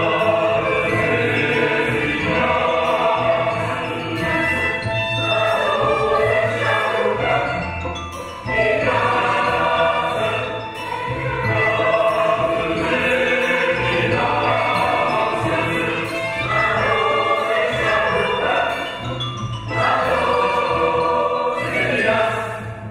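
Large mixed choir singing a contemporary classical choral work with string orchestra accompaniment, in sung phrases a few seconds long with short breaks between them.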